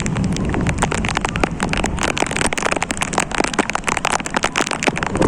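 Heavy rain falling hard, with many sharp drop hits close by, dense and continuous.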